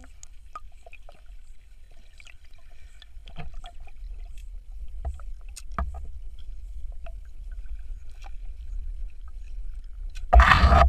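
Underwater ambience heard through a submerged camera: a low steady rumble with scattered small clicks and knocks. About ten seconds in, a loud rushing burst lasts about half a second.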